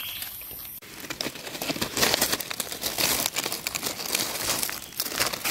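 Dry leaf litter crackling and rustling as a hand rummages through it to pull up mushrooms, starting about a second in and going on in dense, irregular crackles.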